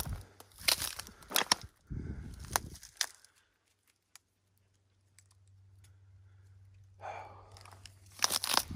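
Footsteps crunching on dry, stony desert ground. Sharp cracks come in the first three seconds and again near the end, with a short quiet stretch in between.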